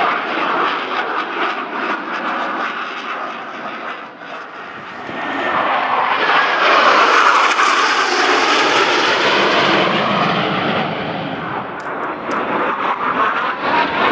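Jet engine noise from Blue Angels F/A-18 Hornets flying past. The sound dips briefly, then swells as a formation passes, loudest about seven to eight seconds in, and fades again with a falling whine.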